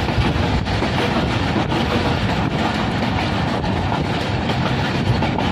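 Passenger train running along the track, heard from inside a coach: a steady rumble of wheels on rails with occasional faint clicks from the rail joints.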